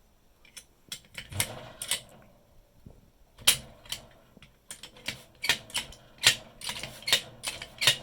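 Metal clicks and clanks of a Folger Adams prison door latch and its key being worked by hand: a few sharp clicks at first, then, after a short pause, a quicker run of clacks.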